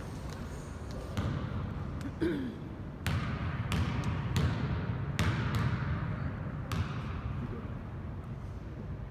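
Basketball bounced on a gym floor by a free-throw shooter, about half a dozen bounces at an uneven pace, each echoing briefly in the gym, over low chatter.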